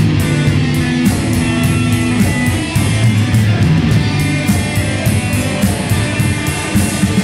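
Rock band playing: two electric guitars, bass guitar and a drum kit, with cymbal strokes keeping a steady beat.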